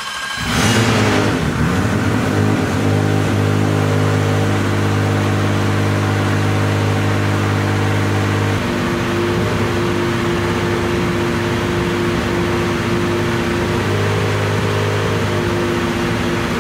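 Toyota B58 turbocharged inline-six in a GR Supra drift car catching on its first start with its new header and turbocharger, flaring briefly about half a second in, then idling steadily. About eight and a half seconds in, the idle settles into a different note and holds.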